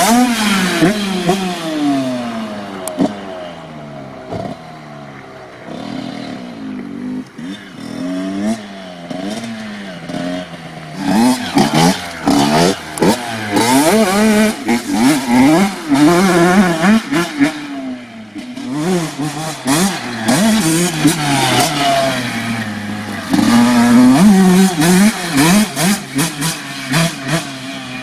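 Honda CR85 85cc single-cylinder two-stroke dirt bike engine. It revs loud as it passes close by, its pitch falling as it pulls away, and fades to a distant drone. From about eleven seconds in it revs hard again in repeated bursts, the pitch rising and falling with each throttle blip, then fades near the end.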